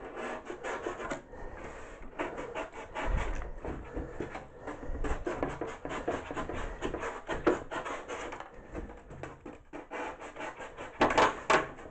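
Utility knife cutting through a Styrodur extruded-polystyrene foam board in many quick short strokes, a few louder strokes near the end.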